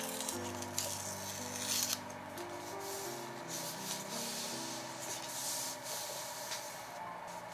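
A hand rubbing and smoothing a printed book page down onto a journal page, a dry papery swishing that comes and goes in strokes, over soft background music with held notes.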